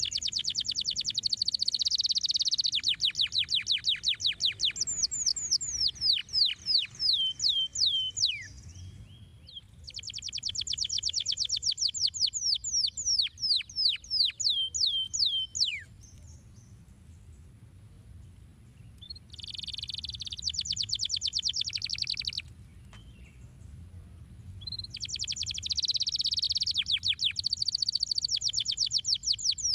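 Domestic canary singing: long phrases of fast trills and rapidly repeated notes, many ending in quick falling whistles. Four phrases, with short pauses between them.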